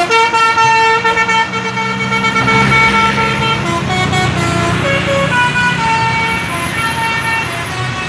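Multi-tone 'telolet' musical bus horn playing a tune of held notes that jump in pitch every half second or so, over a bus engine running.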